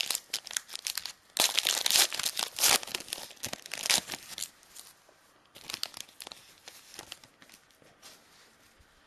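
A foil trading-card pack wrapper being torn open and crinkled. Dense crackling runs for about the first four seconds, then lighter rustling thins out.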